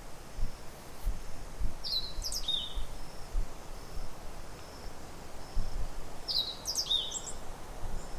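A bird gives the same short call twice, about four seconds apart: a quick falling note followed by a lower one. It is heard over a steady outdoor background hiss with low rumbling.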